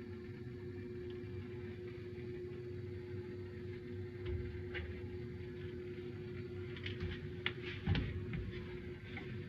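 Soldering torch flame burning with a steady low rumble on a copper water line, with a handful of light clicks and taps about seven to eight and a half seconds in.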